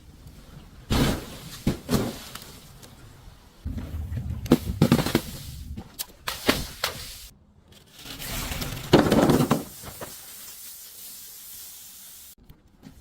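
Objects being crushed, in a series of sudden crunching and cracking bursts, the loudest about a second in and again around nine seconds, with low rumbling noise between them.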